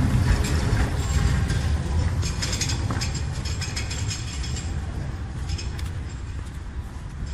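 A tram passing close by and moving away, its low rumble fading steadily. About two seconds in, a spell of rapid metallic clicking and rattling runs for a few seconds.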